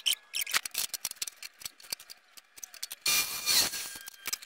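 Clicks and taps of a steel combination square and a clear plastic sheet being handled on a wooden workbench. About three seconds in comes a brief loud rush of noise lasting about half a second.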